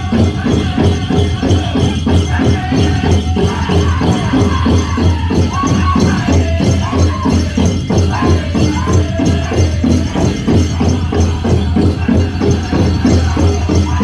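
Powwow drum group singing a chicken dance song: high voices over a fast, steady beat on a large shared drum, with the jingle of the dancers' leg bells.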